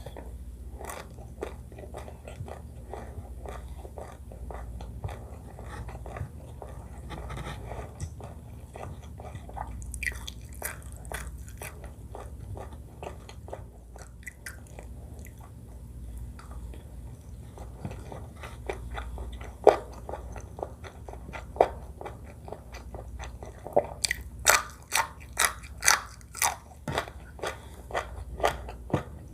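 A person chewing and biting food close to the microphone: a steady run of small wet mouth clicks, then near the end a series of louder, sharper chews at about two a second.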